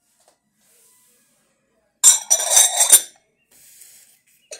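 Crystal-glass lids of two small tagine dishes being set onto their glass saucers: a burst of glass clinks and ringing lasting about a second, about two seconds in. A short clink follows near the end.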